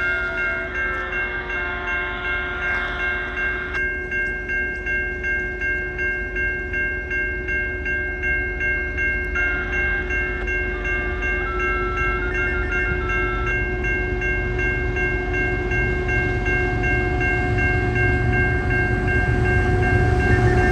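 Level crossing bell ringing steadily while an approaching CN freight train's low rumble grows louder toward the end.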